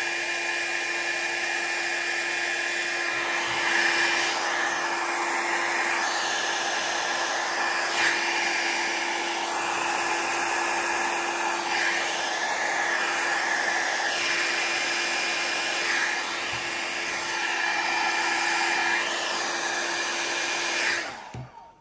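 Revlon 500-watt styling-brush hair dryer blowing steadily, a rush of air with a steady motor hum, shifting a little as it is moved close over the ink. It cuts off near the end.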